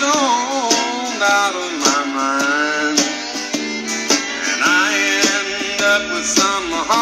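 Country song playing from a 45 rpm vinyl single on a turntable, in a stretch without sung words: guitar and fiddle lines with sliding notes.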